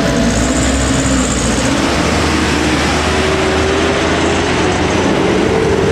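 Truck engine running as it pulls across a level crossing, with a faint tone that rises slowly, over steady motorcycle traffic noise.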